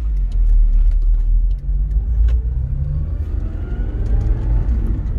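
Honda S2000's four-cylinder engine and road rumble heard from inside the cabin while driving, with scattered light clicks. The engine note rises as the car accelerates over the last couple of seconds.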